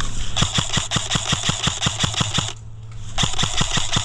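Airsoft electric gun firing on full auto: two bursts of rapid, evenly spaced clicking shots, the first about two seconds long, the second starting about three seconds in.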